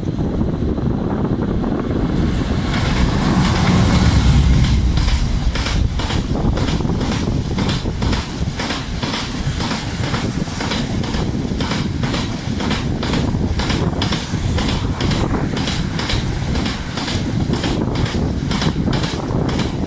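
Diesel-hauled freight train passing: a heavy low rumble swells about three to five seconds in, then the wagons' wheels click over the rail joints in a steady repeating rhythm.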